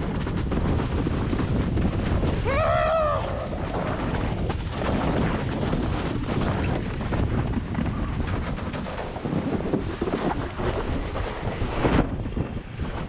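Wind buffeting the action-camera microphone and water rushing under a windsurf board planing fast over choppy sea. About three seconds in there is a brief pitched tone that rises and falls, and near the end a single sharp knock.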